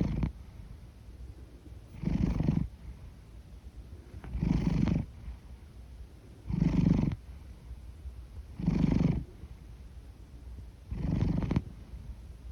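A big domestic cat asleep, snoring and purring. A loud, rasping breath comes about every two seconds, five in a row, with a low purring rumble between them.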